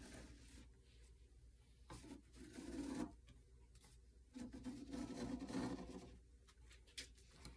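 Faint scraping of a metal framing square sliding across a tabletop against two nails as a marker in its corner draws an arc, in two stretches, about two seconds in and again from about four and a half to six seconds.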